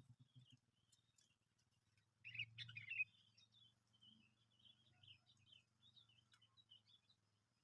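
Faint bulbul chirps: a louder quick run of calls about two seconds in, then softer scattered twittering.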